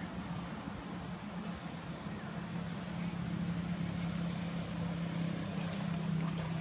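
A motor running steadily with a low hum, a little louder in the second half.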